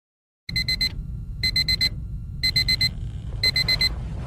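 Alarm beeping to wake someone up: bursts of four quick, high beeps repeating about once a second, starting about half a second in.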